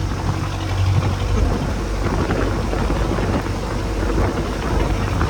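Small fishing boat's engine running steadily at sea, with wind buffeting the microphone and the rush of rough water.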